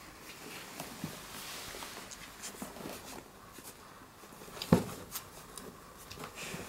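Soft scattered rustles and small clicks of a Shiba Inu mother and her young puppies shifting on the blanket of their pen, with one sharp knock a little under five seconds in.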